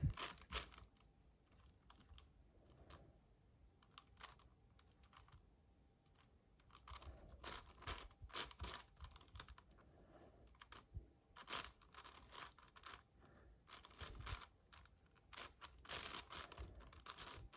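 Magnetic 7x7 Rubik's cube being turned by hand: soft clicking of the layers, sparse at first, then quicker clusters of clicks from about a third of the way in.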